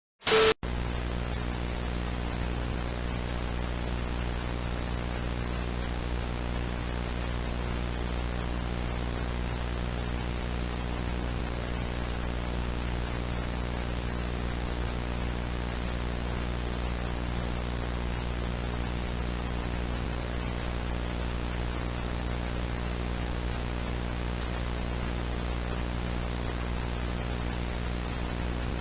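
Steady static hiss with a low electrical hum and its overtones underneath, unchanging throughout. It begins with a short loud burst about half a second in.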